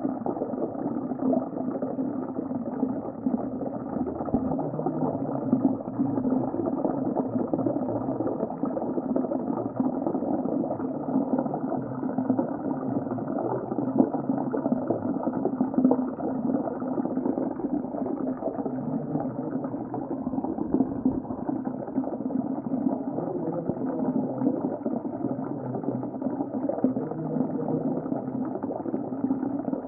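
Underwater ocean ambience: a steady, muffled rush of water with a fine bubbling crackle, dull and without any high tones.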